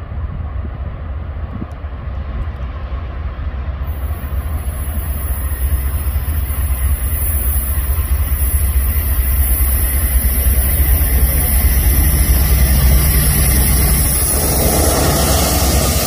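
Diesel freight train on the main line, a heavy low rumble with rail noise that grows steadily louder over the first dozen seconds. A hiss joins about four seconds in, and the sound thickens near the end.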